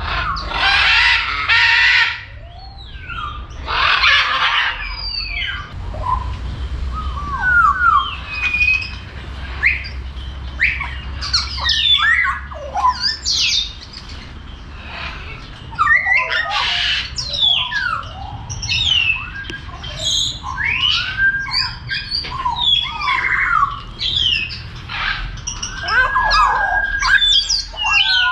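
A mix of aviary birds calling together: three loud harsh squawks, near the start, about four seconds in and about sixteen seconds in, over many short whistles and chirps. Each bird makes a different sound.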